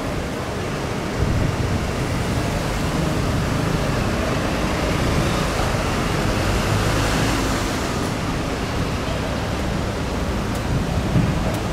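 Steady city street noise of road traffic, swelling as a vehicle passes about halfway through.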